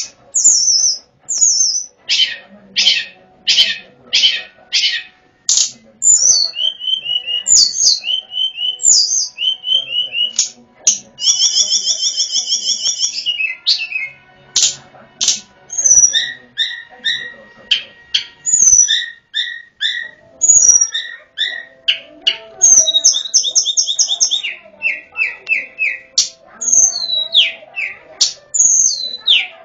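Tledekan gunung songbird singing, the lure song used to call the bird: a long run of loud, high whistled notes, short repeated chips and fast trills, in phrases separated by brief pauses. The song starts abruptly.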